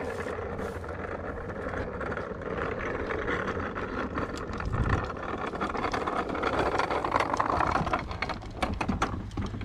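A motor running steadily, growing louder to a peak about three quarters of the way through and then dropping away, with scattered clicks and knocks over it.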